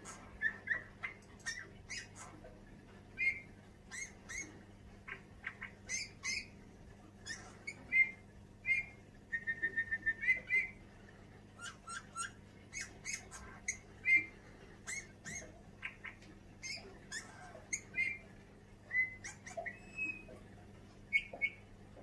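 Male Eurasian bullfinch singing: a broken string of short, creaky whistled notes mixed with sharp high ticks, with a quick run of repeated notes about ten seconds in.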